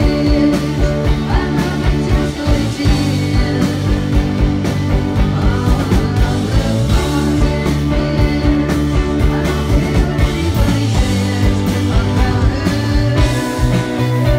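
Rock band playing live: drums keeping a steady beat under bass and electric guitar, with a singer's voice over the top.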